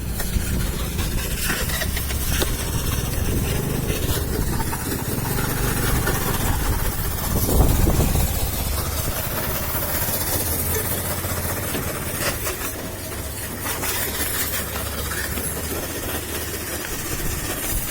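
Honda Activa 4G scooter's small single-cylinder engine running with a steady low hum, swelling louder briefly about seven to eight seconds in.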